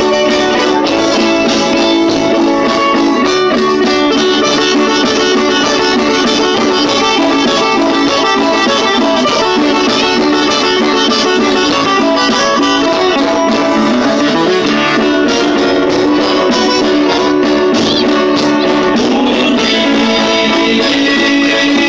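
Live band of strummed and picked acoustic guitars with an electronic keyboard playing an instrumental passage, with no singing.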